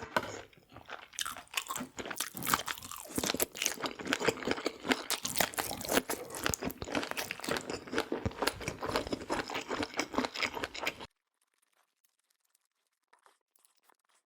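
Close-miked eating: a person chewing crunchy food with many crisp, irregular crunches, which cut off abruptly about eleven seconds in, leaving near silence.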